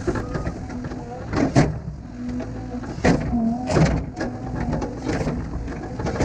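Diesel engine of heavy earthmoving equipment running, with three sharp knocks in the first four seconds.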